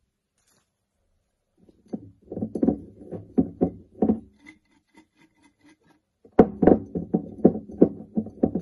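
Fresh chilies rattling and knocking against a red plastic colander as it is shaken close to the microphone. The knocking comes in two bouts of quick knocks, the first starting about two seconds in and the second, louder one about six seconds in.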